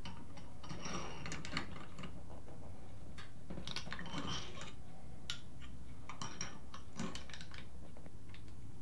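Irregular metallic clicks and scrapes of a hand tool gripping and twisting a seized piston in a four-piston motorcycle brake caliper as it is worked loose.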